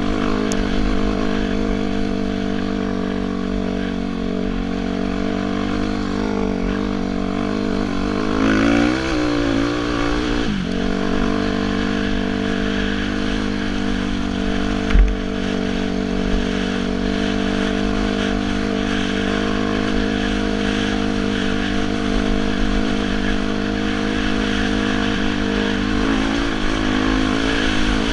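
2006 Suzuki RM-Z250 dirt bike's single-cylinder four-stroke engine running steadily under way, its pitch wavering and dipping briefly about nine to ten seconds in. A single short thump about fifteen seconds in.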